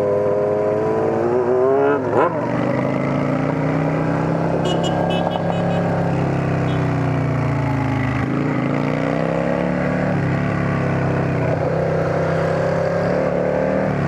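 Motorcycle with a straight-through exhaust under way. The engine note climbs, drops sharply at a gear change about two seconds in, then rises and falls with the throttle.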